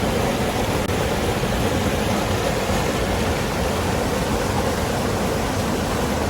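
Waterfall: water pouring and rushing in a dense, steady roar of noise, close to the microphone.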